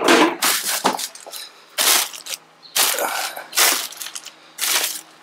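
Plastic bags of parts being rummaged in a plastic storage tote, crinkling in a run of sharp bursts about once a second.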